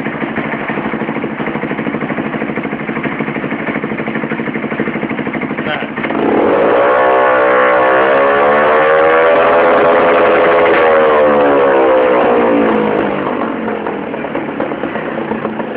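Gilera Runner scooter engine through a MIVV exhaust with the silencer insert removed: idling, then revved about six seconds in, the pitch climbing and holding for several seconds before falling back to idle near the end.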